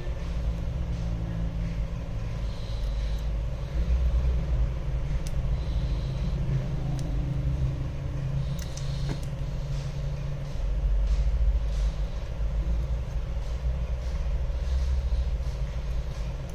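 Low, steady rumble with a constant hum above it, swelling and easing a little in loudness.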